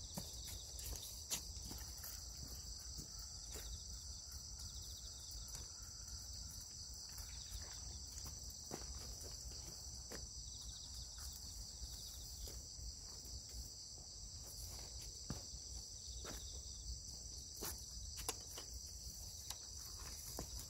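Steady, high-pitched chorus of insects chirring in the grass, with scattered small clicks and rustles throughout.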